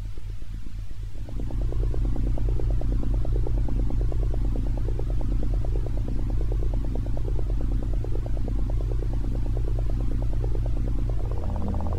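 Low electronic drone with a fast flickering pulse; it grows louder about a second in and shifts in tone near the end.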